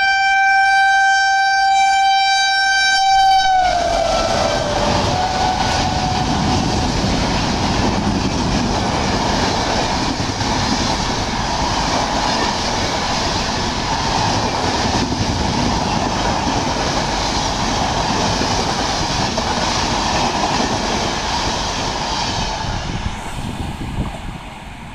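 WAP-7 electric locomotive's horn sounding one long steady tone that drops in pitch and stops about four seconds in. The train's coaches then rush past with a steady noise and wheel clatter on the rails, which fades near the end.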